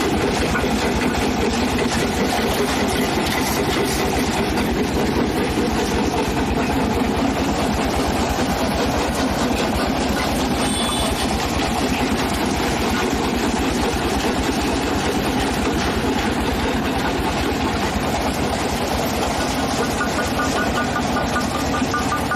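Engine of a heavy brick-breaking machine running steadily with a rapid low knocking pulse, joined near the end by a steady whine.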